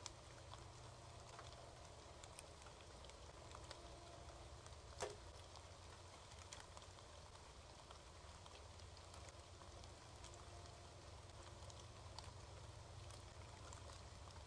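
Near silence: a steady low hum and hiss with scattered faint ticks, and one sharper click about five seconds in.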